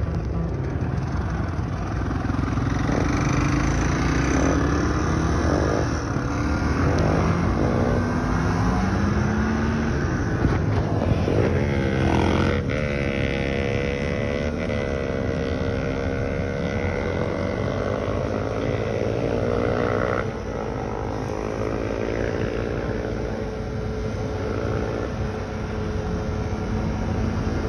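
Four-wheeler (ATV) engines running at road speed, their pitch climbing and dropping with the throttle and a sharp rev about halfway through, over a steady low rush.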